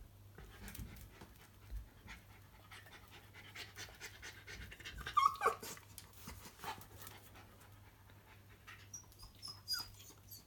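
Shiba Inu panting, with scattered small clicks and a short squeak falling in pitch about five seconds in.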